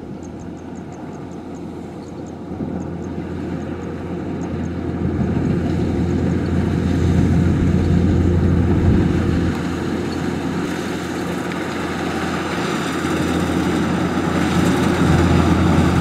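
Kubota DC105X combine harvester running under load as it cuts rice: a steady diesel engine drone with the clatter of its threshing machinery, growing louder over the first several seconds as it comes closer.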